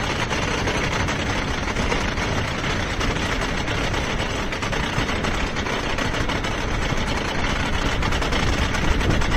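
Wooden roller coaster train being hauled up the lift hill by its chain: a steady mechanical clatter made of rapid, even clicking.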